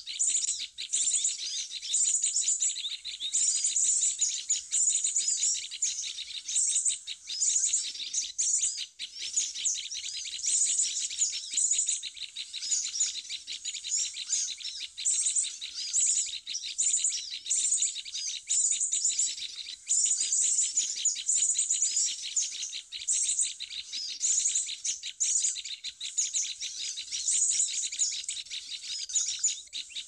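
Bird-luring call recording (suara pikat) of small birds: a dense, unbroken chatter of many high-pitched chirps, twitters and rapid ticking calls, played to attract small forest birds.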